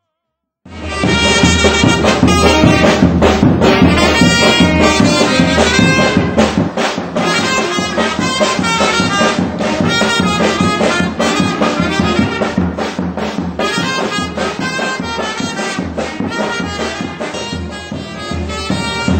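Brass band music, beginning suddenly about a second in.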